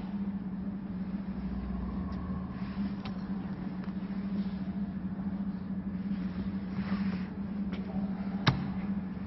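Chicken breast slicing machine running with a steady motor hum at one low pitch, with a few light knocks and one sharp click near the end.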